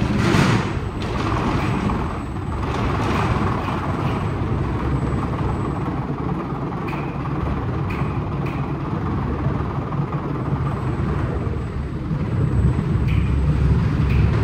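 WashTec SoftCare² Takt rollover car wash running: a steady mechanical noise with a low rumble, broken a few times by short clicks.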